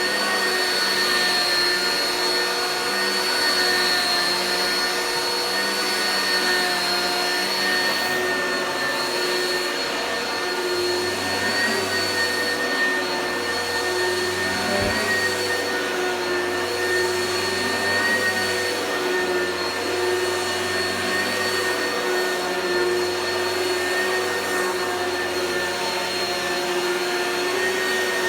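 Oreck vacuum cleaner running steadily, its motor giving a constant whine.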